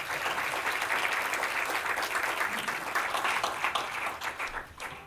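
Small audience applauding with many hands clapping, dying away near the end.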